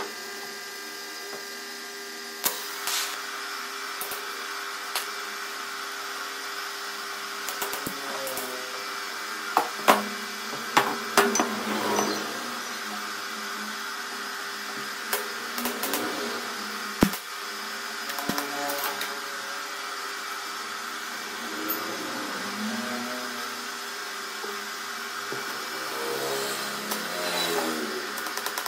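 Steady machine hum from the workshop, with several sharp knocks and clanks of stainless steel tubing being moved and set on the wooden bench.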